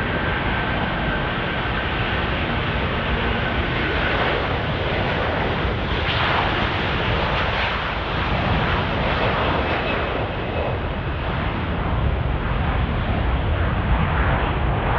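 Jet airliner's engines running loud and steady, with a deep rumble under a wide rushing noise. A faint high whine fades out about four seconds in.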